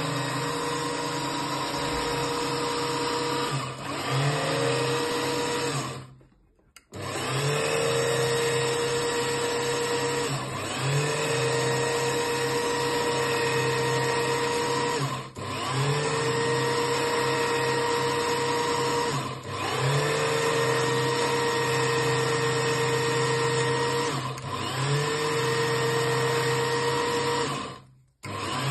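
Small bench lathe running with a steady high whine while turning a bakelite prayer bead. Every few seconds the sound dips briefly and the whine glides back up to speed, and it cuts out almost completely twice, about six seconds in and near the end.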